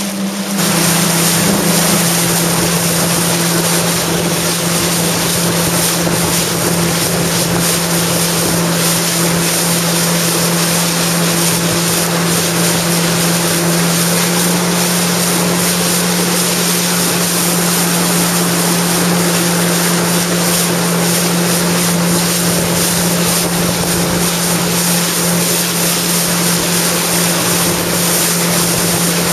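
Jet ski engine running at a steady cruising speed, a constant low drone over the rush of water and wind. The sound grows louder about half a second in, then holds steady.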